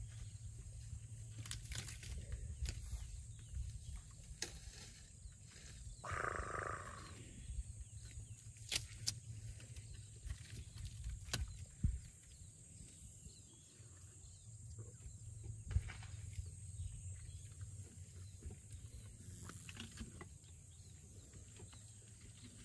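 Elephants browsing on acacia: scattered sharp cracks of twigs snapping and leaves rustling as trunks pull at the branches, over a low continuous rumble.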